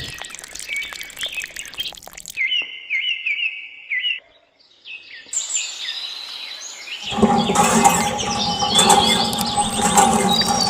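Small birds chirping in quick, repeated short calls that start and stop abruptly. About seven seconds in, the sound grows louder and fuller, with a steady low hum under the chirps.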